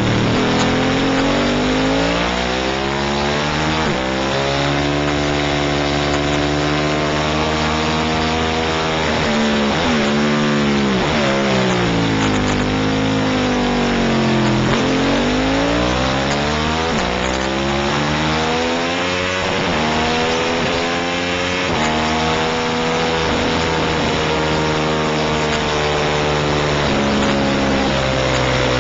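750 superbike race motorcycle's engine at racing speed, its pitch climbing in steps through upshifts on the straights and dropping sharply several times as the bike brakes and downshifts for corners.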